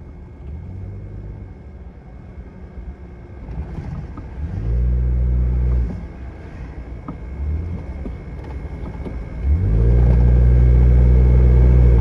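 Engine and road rumble from inside a moving vehicle, swelling louder with a low steady drone twice: briefly around the middle and again for the last couple of seconds.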